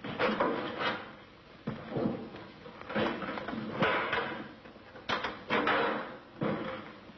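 Irregular clanks and bangs of metal car parts being fitted onto a Volkswagen Beetle as it is assembled, about one or two knocks a second, each ringing briefly.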